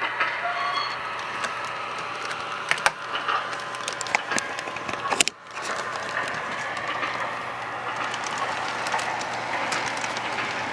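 Model R16 subway train running on the track: a steady motor-and-wheel rumble with scattered sharp clicks as the wheels pass rail joints and switches. The sound drops out briefly about five seconds in.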